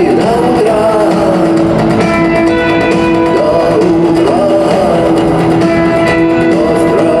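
A rock band playing live: singing over electric guitars and drums.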